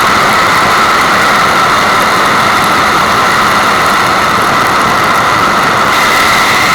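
Steady rushing water, a continuous hiss-like white noise strongest in the upper-middle range, holding an even level throughout.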